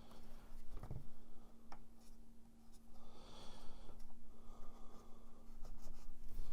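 Hands pressing small rubber blocks into place on a plastic instrument-cluster housing: scattered light clicks and taps with soft rustling of the parts being handled.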